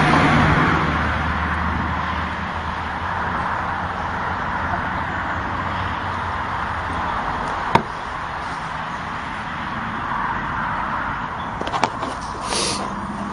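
Steady rushing outdoor background noise, with a single sharp knock about eight seconds in and a few clacks near the end as a wooden treadle chicken feeder's lid drops shut once the hen steps off its treadle.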